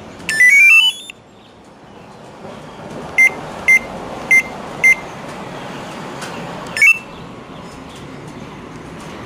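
Samsung washing machine control panel beeping as its buttons are pressed: a short rising stepped tune just after the start, then four short beeps about half a second apart a few seconds in, and one more beep near the seven-second mark, over a steady background noise.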